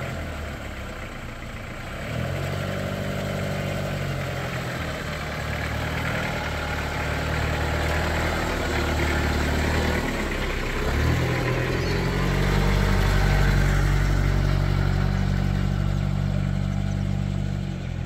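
Pickup truck's engine running steadily. Its note breaks and dips briefly about ten seconds in, then comes back steady and louder.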